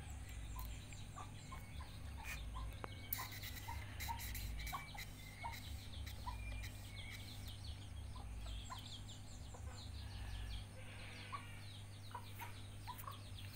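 Chickens clucking, short calls coming every half second or so, with quick high chirps mixed in during the second half, over a steady low hum.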